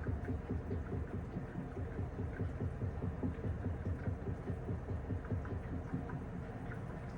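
Panasonic top-loading washing machine running a wash cycle, with water and laundry sloshing unevenly in the tub and faint small clicks and splashes.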